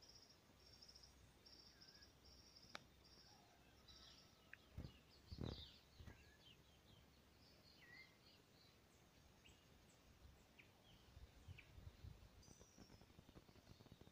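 Faint forest birdsong: scattered short chirps and whistles, with a high pulsed trill repeated every second or so during the first four seconds. A few soft bumps come about five seconds in, and there is light crackling near the end.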